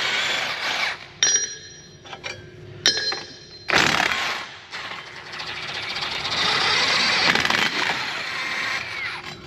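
Snap-on impact wrench hammering on the dozer track's master-link bolts: a short burst, a couple of brief blips, then one long run of about five seconds.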